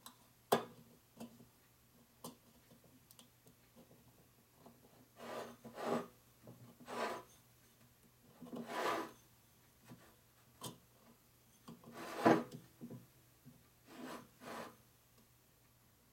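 Piston rings being turned and set in the grooves of a piston by hand: short metal-on-metal scrapes and rubs with a few sharp clicks.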